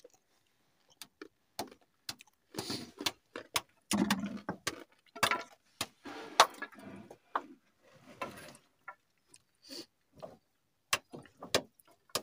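Stones and chunks of ice knocking and scraping together as a hand digs in a rock crevice to break out natural ice: scattered sharp clicks throughout, with stretches of rough scraping.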